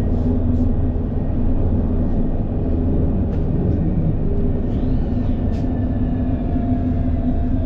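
Electric tram running on its rails, a steady low rumble with a faint whine held under it.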